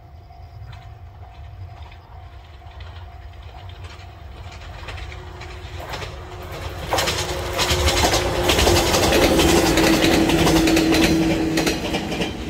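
JR 115-series electric train in Yahiko livery approaching and passing close by. It grows louder from about four seconds in, with wheels clattering over rail joints and a steady hum, is loudest a little past the middle, and eases near the end.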